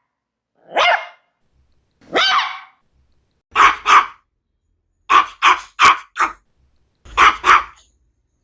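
Maltese dog barking: two separate, slightly drawn-out barks, then quicker runs of two, four and two sharp barks, about ten in all.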